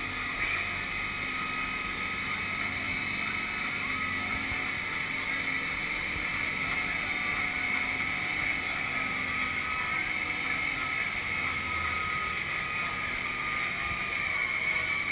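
Amphibious truck under way afloat: its engine runs at a steady, unchanging drone, mixed with water rushing along the hull.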